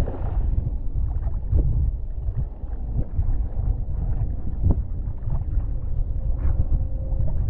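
Wind buffeting the microphone of a rig-mounted camera on a windfoil board in flight: a steady low rumble, broken by short splashes of water off the foil mast. A faint steady hum comes in near the end.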